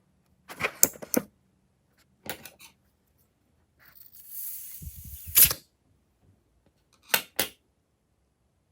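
Handling sounds from slime making: sharp clicks and taps in small clusters, and a hiss lasting about a second and a half near the middle that ends in a loud snap.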